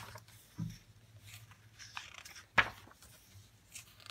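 Pages of a thick hardcover book being turned by hand: paper rustling and crinkling, with one sharp flip about two and a half seconds in.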